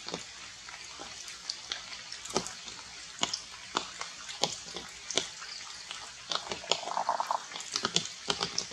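Water dripping from rain-wet leaves: irregular sharp drips and ticks. A brief pitched call comes about seven seconds in.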